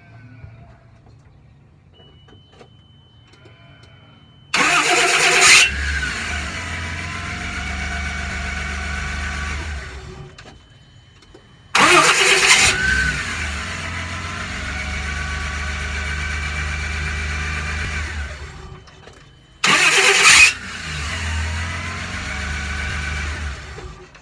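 Mean Green aftermarket starter cranking a 1997 Toyota Land Cruiser's 4.5-litre inline-six three times: each time a loud whirring burst of about a second, then the engine catches, runs steadily for several seconds and is switched off. The owner finds the starter's whir on start-up not normal for a starter, even though it is better than his first Mean Green unit.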